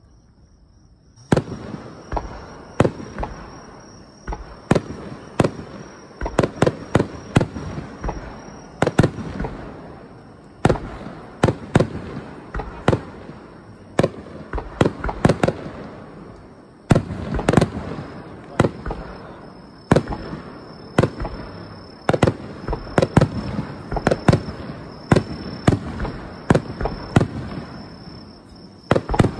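Fireworks barrage: dozens of aerial shells bursting in quick succession, sharp bangs often several a second, each trailing off briefly. The bangs begin about a second in after a short quiet moment.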